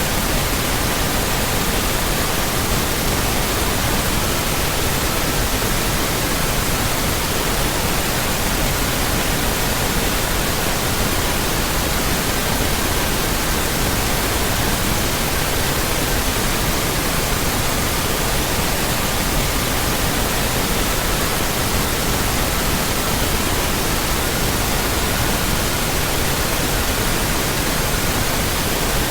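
Steady pink noise, an even hiss, with faint pure tones at 1200, 1320, 1440 and 1555 Hz that switch from one to another every few seconds.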